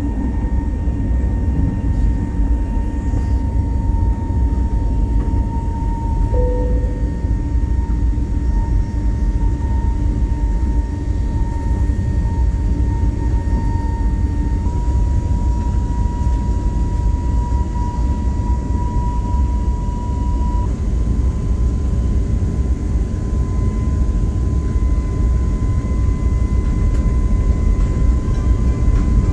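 Airbus A321neo cabin noise during takeoff and climb-out: a loud, steady low rumble of engines and airflow. Over it sits a steady engine whine that steps up slightly in pitch about halfway through and again a few seconds later.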